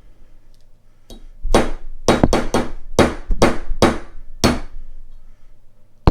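A hammer tapping a Delrin polymer punch about nine times, in uneven strikes, to drift a Glock rear sight into its dovetail. The sight is stiff and moving in slowly.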